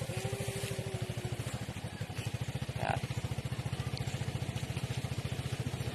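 A small engine idling steadily with a rapid, even low putter. A faint thin whine sounds through the first second and a half.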